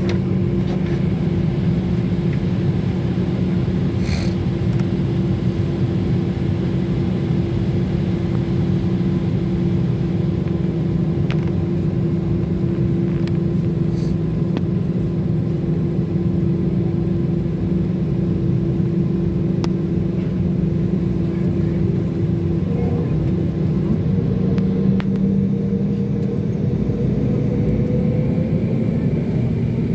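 Steady drone inside an airliner's cabin as it taxis, from the jet engines at idle and the cabin air, carrying two held hum tones. Past two-thirds of the way through, one tone drops away and a higher one comes in, rising slightly.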